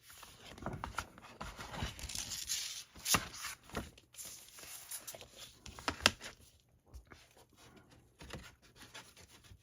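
Paper and cardboard rustling and scraping as a vinyl record's inner sleeve and jacket are handled, busier in the first half. A few sharp taps stand out, the loudest about six seconds in.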